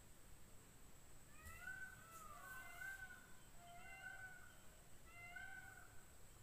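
Faint, short high-pitched animal calls, about five in a row starting a little over a second in, over near silence.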